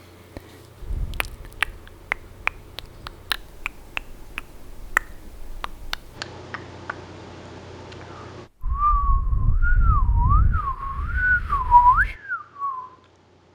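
A brush scratching and tapping against a microphone for about eight seconds, giving many sharp clicks over a faint hiss. Then a person whistles a short wavering tune, with breath rumbling on the microphone under it.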